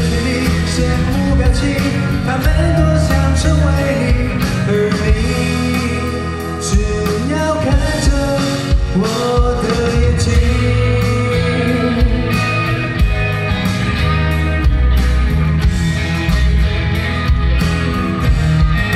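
Male vocalist singing live into a handheld microphone over a loud rock backing track with electric guitar and a steady beat; near the end the voice drops out and the guitar carries on.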